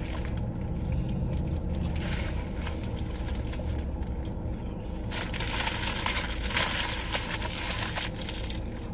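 Fast-food paper wrappers and bag crinkling and rustling, heaviest in the second half, over the steady low hum of a minivan.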